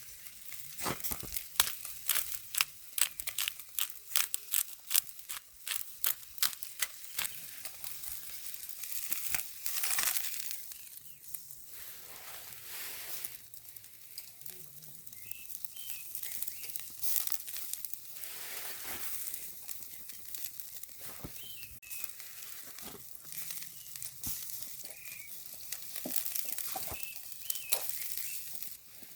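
Wood fire crackling, with a dense run of sharp, irregular pops in the first several seconds, then a quieter hiss with occasional pops.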